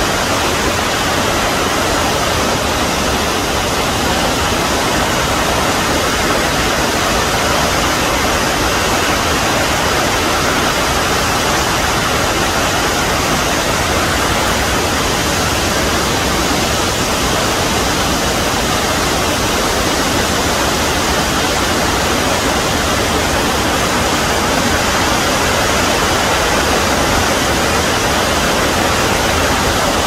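Burney Falls, a tall waterfall, pouring into its plunge pool: a loud, steady rush of falling water.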